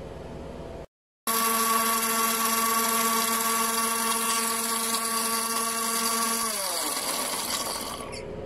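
Electric mixer grinder motor running at full speed with a steady whine, its blade blending mango pieces and sugar into pulp. It starts suddenly about a second in, and near the end its pitch falls as the motor winds down.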